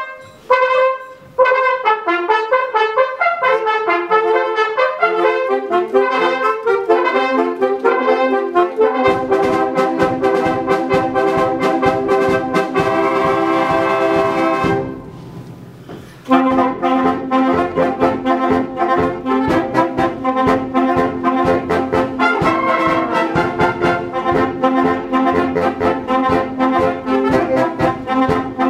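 Amateur concert wind band playing with saxophones, clarinets and trumpets. A quick, busy passage gains low notes about nine seconds in. A held chord swells and breaks off about halfway through, then the full band comes back in with a steady beat.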